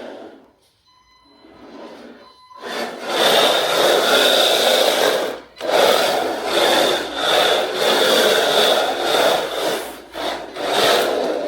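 Electric HPI RC drift car running across the floor: a high motor whine over tyres scrubbing and sliding. It comes in surges as the throttle is worked, starting about two and a half seconds in, with short let-offs twice.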